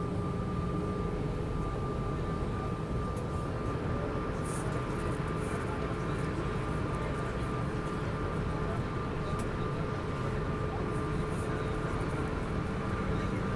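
Airbus A319 taxiing slowly, heard from inside the cabin: the jet engines idling as a steady low rumble with two constant whining tones above it.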